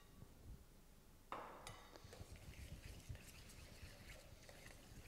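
Faint clinks and scrapes of a fork against a stainless steel mixing bowl as spaghetti is tossed with egg yolks, the clearest about a second and a half in.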